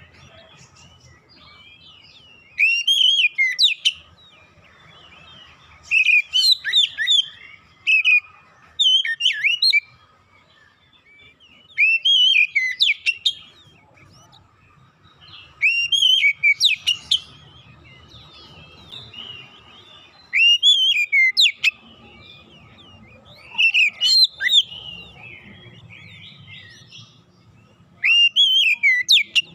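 Oriental magpie-robin (kacer) singing: loud whistled phrases of quick rising and falling notes, each about a second long, repeated about every three seconds with short pauses between.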